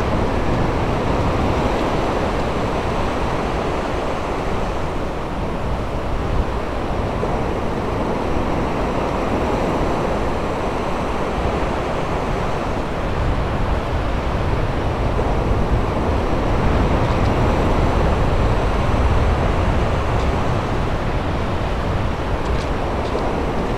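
Steady noise of sea waves breaking on a sandy beach, mixed with wind rumbling on the microphone.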